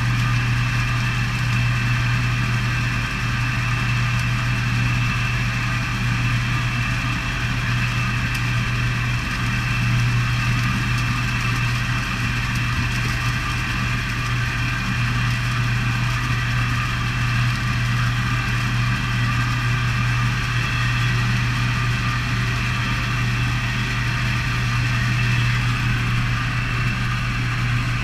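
A fish stocking truck's engine idling steadily: an even, low hum that does not change.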